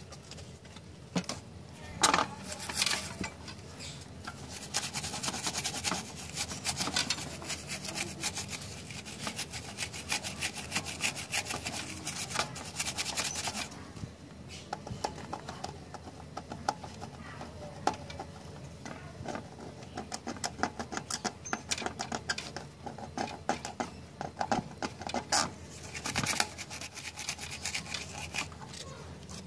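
A small brush scrubbing the solder joints of an amplifier's selector switch on the back of a circuit board, in rapid back-and-forth strokes. A knock comes about two seconds in, then about nine seconds of steady scrubbing, quieter handling of the board, and another short bout of scrubbing near the end.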